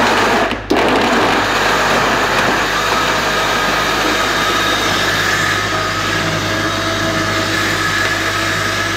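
High-speed countertop blender running at full power, liquefying fruit, leafy greens, tiger nuts and water into a smoothie. It makes a loud, steady whine that briefly drops just under a second in, then runs on with its pitch creeping slightly upward.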